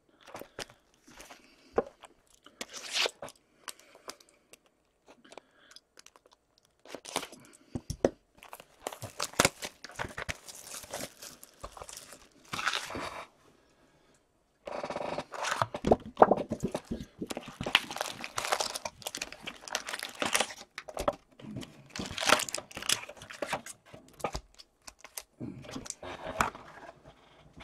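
Plastic wrapping on a 2014-15 Upper Deck Series One hockey hobby box being torn and crinkled, and its foil card packs rustling as they are handled and stacked. The crackling comes in irregular spurts, with a brief pause about halfway through.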